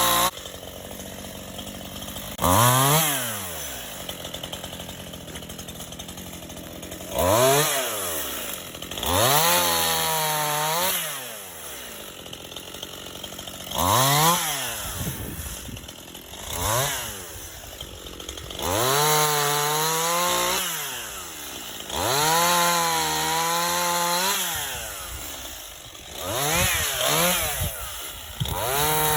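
Stihl MS 181 two-stroke chainsaw revved up from idle again and again, about eight times. At each burst the engine pitch wavers as the chain cuts into firewood logs, then the saw drops back to idle. Near the end it is held at high revs.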